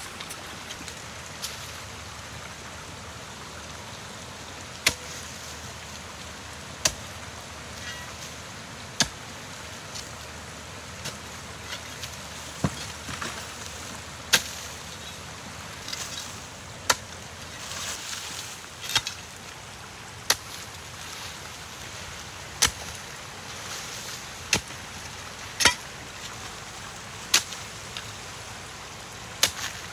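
Sharp single knocks, about one every two seconds, over a steady rushing hiss.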